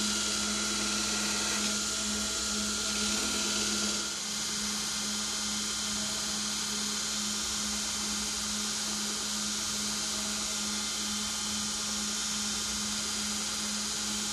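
Belt grinder running steadily while a knife handle is roughed out, a constant motor hum with a high hiss. About four seconds in the hiss eases a little and the motor hum carries on.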